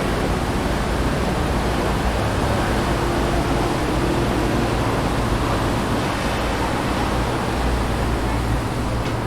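Steady city street ambience: a continuous wash of traffic on an avenue mixed with wind rustling tree leaves, heaviest in the low rumble.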